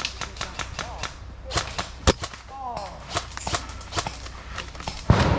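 Airsoft guns firing in an exchange: a scatter of sharp pops and snaps at uneven intervals, with a loud close one about two seconds in and another near the end.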